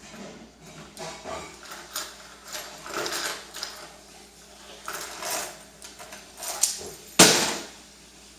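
A series of short knocks and clatters, irregularly spaced, with a sharp loud hit about seven seconds in that rings off over a second.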